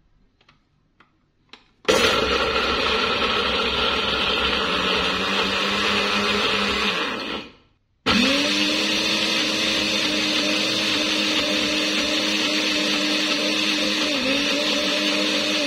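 Small personal blender's motor grinding chopped shallots, garlic, chillies and tomato into a spice paste, in two runs: it starts about two seconds in, runs about five seconds, winds down and stops, then starts again a moment later and keeps running. A few light clicks come before the first run.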